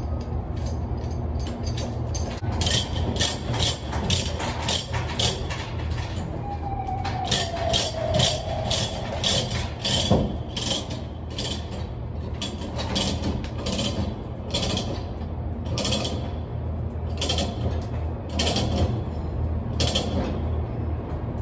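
Ratchet chain binder being cranked to tighten a tie-down chain over a steel coil: runs of sharp metallic clicks, about two or three a second, starting a couple of seconds in with a short pause partway, over a steady low hum.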